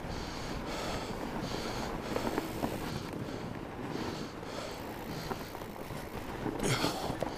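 A rider breathing hard and in rhythm close to the microphone while pedalling a fat bike over packed snow, over a steady rumble of the fat tyres and wind on the mic. There is a louder burst near the end.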